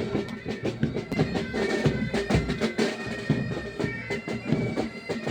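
Pipe band playing: bagpipes sounding a melody over their steady drone, with snare and bass drums beating along.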